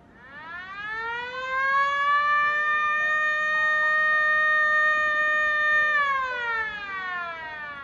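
Lightning-warning alarm siren sounding as an alert to take shelter from possible lightning. It winds up over about two seconds, holds a steady wail, and begins winding down about six seconds in.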